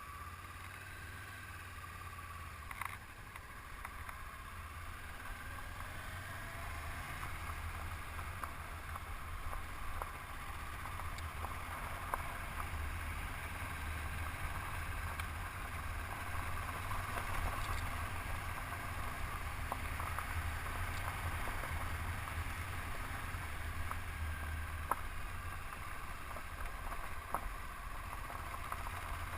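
Honda CB500X's parallel-twin engine running steadily as the motorcycle is ridden along a dirt trail, with a low rumble of wind on the microphone and a few sharp ticks.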